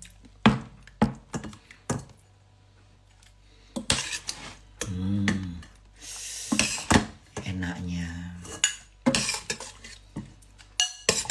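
A serving utensil clinking and scraping against a large ceramic bowl as food is dished into it, with a string of sharp knocks in the first two seconds.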